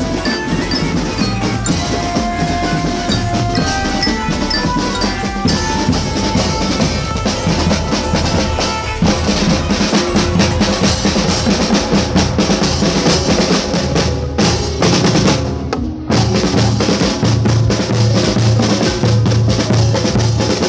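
Drum-heavy music: a bell-like melody rings over the drums for the first several seconds, then drums carry on alone. From about sixteen seconds in, a bass drum keeps a steady beat of about two strokes a second.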